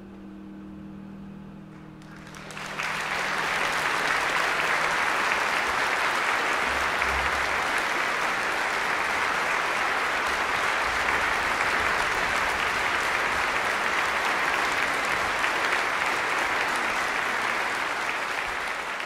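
The orchestra's last notes fade out, then a full concert-hall audience applauds steadily from about two and a half seconds in, tailing off near the end.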